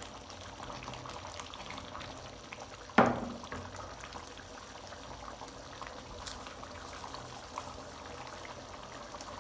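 Chickpea curry gravy simmering and bubbling in a pan, a steady low sound, with one sharp knock about three seconds in.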